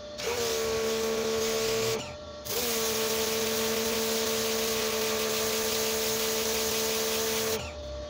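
Koblenz 1650 psi electric pressure washer's motor and pump running with a steady whine, water jet hissing onto concrete, starting and stopping with the trigger: a short run, a half-second stop about two seconds in, then about five seconds of running that cuts off near the end.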